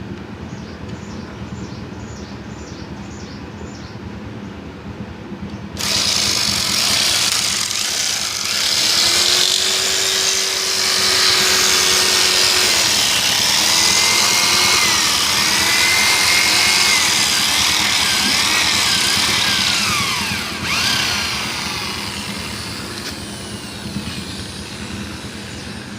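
An electric drill spins a square wooden stick through a cutting hole, shaving its corners to round it into a bird-cage bar. A loud scraping, with squeals that glide up and down, starts suddenly about six seconds in, runs for about fifteen seconds, then fades away.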